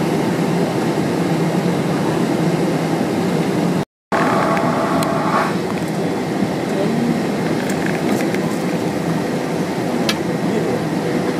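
Steady, low mechanical drone of engines running. It cuts out completely for a moment just before four seconds in, and a brief higher whine rides over it for about a second and a half right after.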